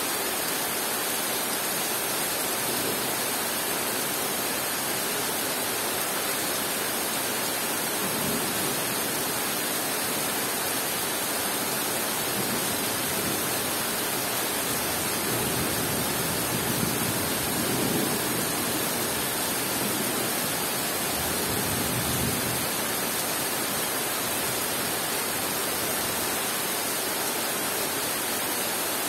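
Heavy rain falling steadily on dense forest foliage, a thick, even hiss. A low rumble swells and fades about halfway through.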